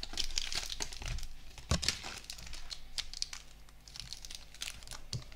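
Plastic and cardboard packaging of a Pokémon booster pack crinkling and tearing as it is pulled apart by hand to free the foil pack, in irregular crackles. There is a louder knock about a second and a half in.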